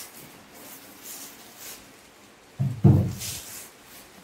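A cardboard product box is handled and set down on a wooden table, making a loud thump and scrape about two-thirds of the way through, with light rustling of packaging around it.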